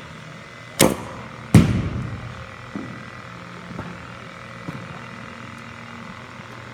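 Batting practice in an indoor cage: two sharp cracks less than a second apart, the second louder and echoing in the hall, then a few faint knocks. A steady low hum runs underneath.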